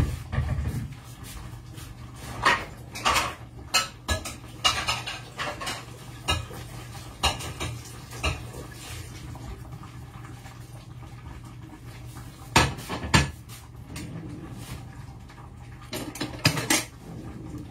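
Kitchen clatter of pots, dishes and cutlery being handled: scattered clinks and knocks, a dense run of them over several seconds, then two sharp knocks and a last cluster near the end, over a low steady hum.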